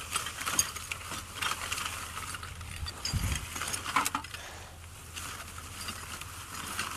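Goods being handled and shifted while rummaging through a dumpster: scattered clicks, knocks and rattles, with a short low rumble of wind on the microphone about three seconds in.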